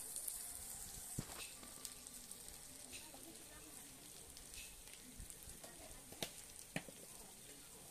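Paste frying in oil in a kadai, sizzling faintly and steadily, with a few sharp clicks or pops.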